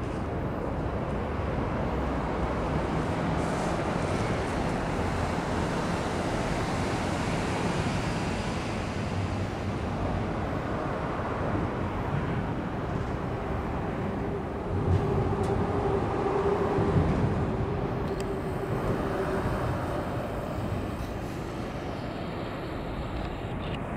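Steady low rumble of outdoor city background noise, with a faint hum through the middle and a brief swell in loudness about fifteen seconds in.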